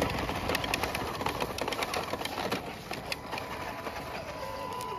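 Radio-controlled Tamiya CC01 truck's small electric motor and gears whirring as it drives slowly over dirt and dry leaves, with many sharp crackling clicks; a thin steady whine grows near the end.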